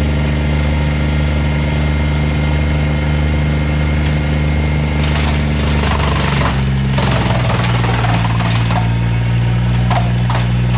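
Morbark wood chipper's flat-four engine running steadily. About five seconds in, wood is fed in and the chipper chews it with a rough, crackling grinding noise, while the engine pitch sags as it bogs down under the load.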